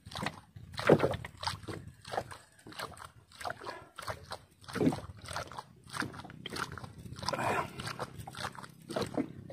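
Drinking from a plastic water bottle: irregular gulps and sloshes of water, with clicks and crinkles of the plastic, the loudest about a second in.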